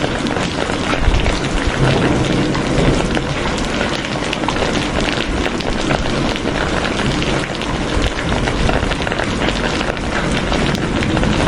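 Steady rain falling, a dense stream of individual drops hitting a surface, evenly loud throughout.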